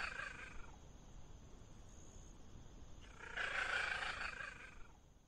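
A cat calling twice: a call that fades out within the first second, then a second call from a little after three seconds in until about five seconds.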